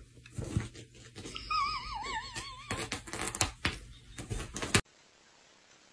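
A cat thrashing about on a quilted bedspread while it attacks a small toy: rustling of the fabric and irregular soft knocks and thumps. In the middle, a high warbling tone wavers up and down for about a second. Near the end the sound cuts off abruptly to faint room tone.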